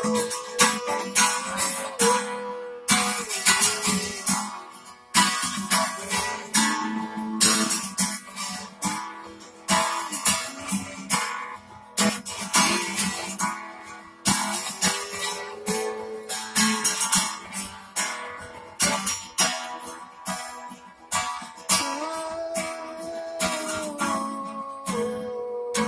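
Acoustic guitar being strummed, chords ringing out and changing every few seconds in a steady rhythm.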